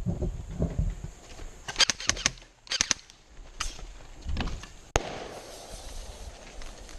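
Airsoft guns firing: short strings of sharp snapping clicks about two and three seconds in, and a single louder crack about five seconds in.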